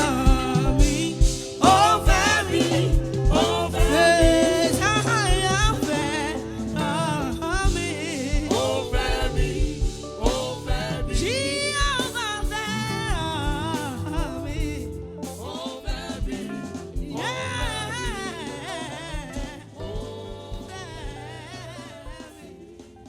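Gospel music with a woman singing over a band and steady drum beat, gradually fading out.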